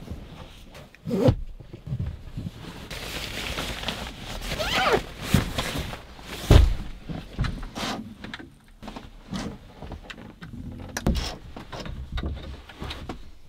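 A series of knocks, clicks and thuds, like things being handled and shut. One heavy thump comes about six and a half seconds in, shortly after a brief squeak.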